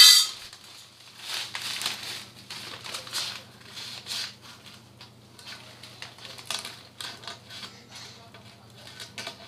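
Rustling and crinkling of a playpen's red fabric cover in irregular bursts as a metal pole is pushed through its sleeve, opening with a brief loud high-pitched tone. A faint steady hum lies underneath.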